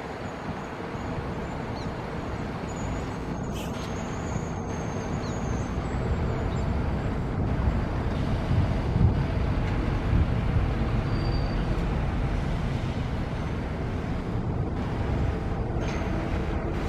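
Scania K360 coach's diesel engine running as the coach pulls slowly up and turns in, its low rumble growing louder as it nears and loudest about halfway through.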